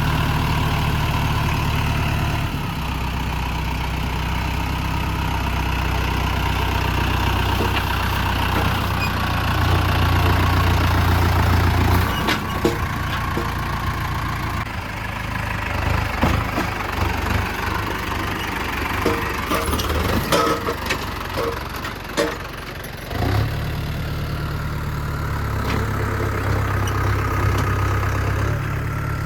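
Mahindra tractor's diesel engine running steadily, driving a mini backhoe. Its low drone drops away in the middle while scattered knocks and clanks come through, then returns near the end.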